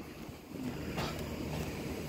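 Low steady background rumble, with a single faint click about a second in.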